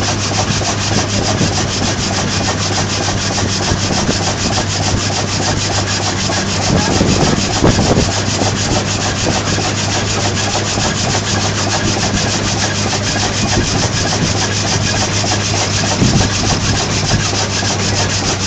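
Old steam-driven mobile sawmill running, its saw cutting a log with a steady rasping of wood and a fast, even rhythm over a low mechanical hum. The sound swells briefly twice, about halfway through and near the end.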